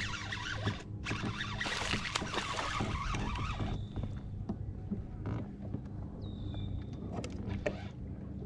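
A steady low hum under a rushing noise and light clicks for the first few seconds, with a short high whistle about six seconds in.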